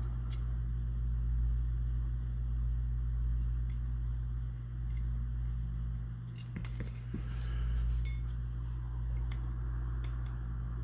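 Steady low electrical hum with a few light metal-on-metal clicks about two-thirds of the way through, as small parts of a side-by-side shotgun's action are handled and fitted together.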